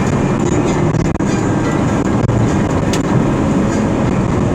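Steady road and engine noise of a vehicle driving at highway speed, a dense low rumble heard from inside the vehicle.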